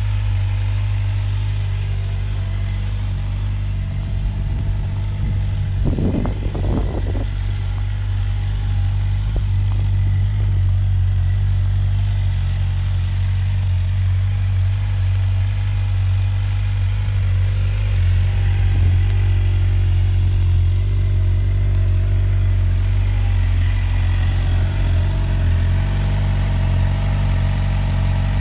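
Suzuki GSX-R750 inline-four engine idling steadily, with a short burst of noise about six seconds in.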